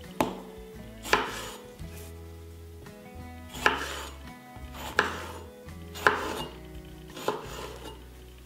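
Kitchen knife slicing through tomato halves and striking a wooden cutting board: about six separate sharp cuts at uneven intervals, each with a brief fading scrape.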